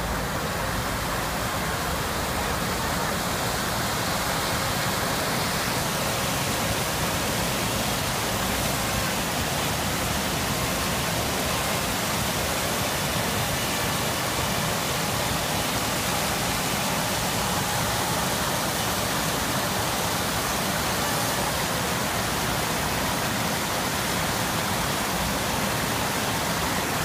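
Water pouring over a low river weir: a steady, even rush of white water.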